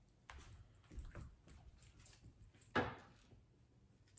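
Faint footsteps and light knocks on a hardwood floor, with one sharper, louder knock about three seconds in.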